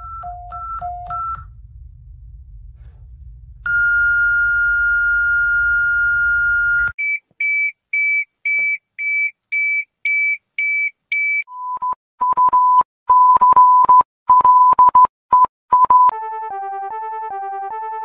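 Synthesized mock emergency-alert tones that change every few seconds: a brief high-low beep, a steady tone held about three seconds over a low hum, a string of about ten quick high beeps, irregular beeps on one pitch, and near the end an alternating two-note warble.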